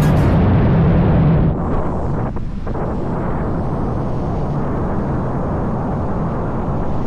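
Loud, steady rushing of wind buffeting the microphone, dropping slightly in level about one and a half seconds in.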